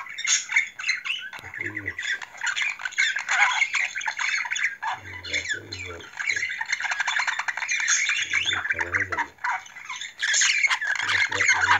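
Male budgerigar chattering and warbling on and on: a rapid, busy stream of high chirps, clicks and squawks.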